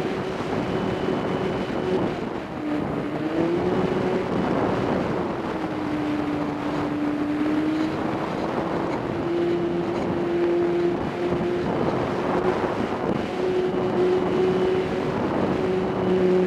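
RC plane's motor and propeller running, giving a steady tone that drops in pitch for a few seconds in the middle and then comes back up. Wind buffets the onboard camera's microphone.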